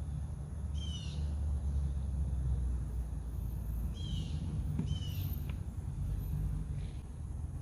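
A bird gives three short calls, about a second in and twice near four to five seconds in, over a steady low rumble.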